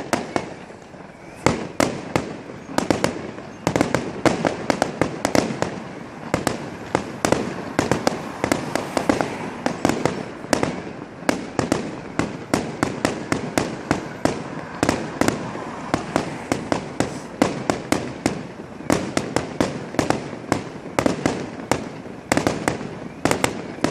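Fireworks going off in a fast, unbroken string of sharp bangs and crackles, several a second, after a brief lull in the first second.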